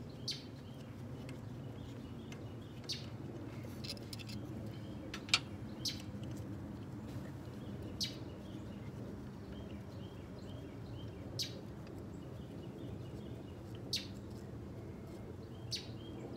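About nine sharp, light clicks and clinks of hand tools and bolts, spread irregularly, as an ignition coil is unbolted in a pickup's engine bay. They sit over a steady low background hum, with birds chirping faintly.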